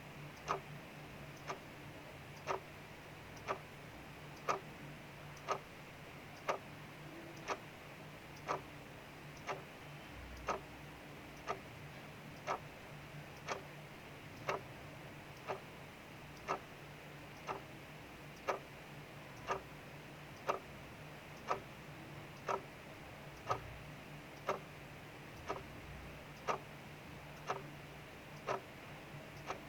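Clock ticking steadily in a regular tick-tock, the louder ticks about once a second, over a faint steady hiss of rain.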